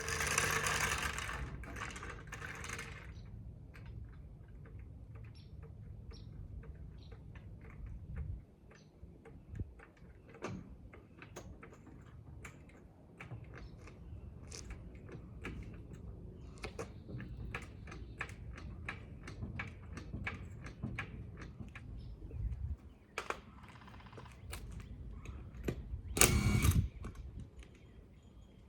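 Many scattered clicks and light knocks over a low steady hum. There is a louder burst of noise at the start and another near the end.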